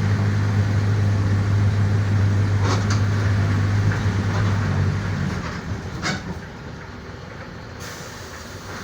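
Mercedes-Benz OF-1418 bus's six-cylinder diesel engine running steadily with a deep drone, then dropping off sharply about five seconds in. A short air hiss comes about a second later, typical of the bus's air brakes.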